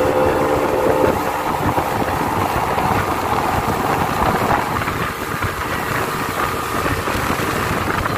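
Tow boat's engine running steadily under way, with water rushing and churning in its wake.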